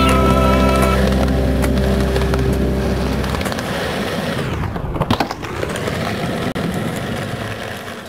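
Skateboard wheels rolling over concrete and a brick ledge, with a cluster of sharp board clacks about five seconds in. The last of a rock music track cuts out in the first few seconds.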